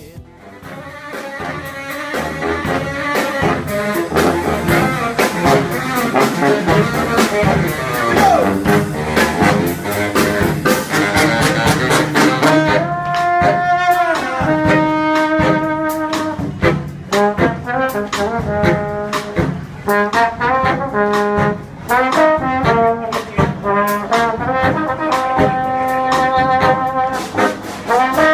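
Background music: a jazzy brass arrangement with trombone, trumpet and saxophone over a steady beat.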